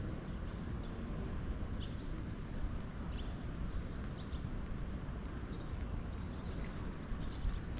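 Steady low outdoor rumble with scattered short, high chirps of small birds.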